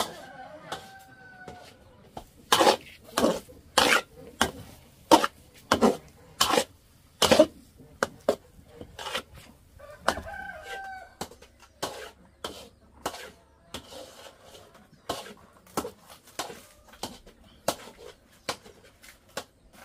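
A rooster crowing twice, once at the start and again about ten seconds in. In between, a run of loud, sharp knocks comes about every 0.7 s, then lighter, irregular knocks.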